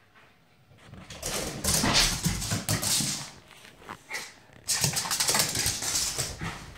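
Border terrier–Jack Russell cross sniffing and snuffling hard in quick bursts, in two long spells: one starting about a second in, the other near five seconds.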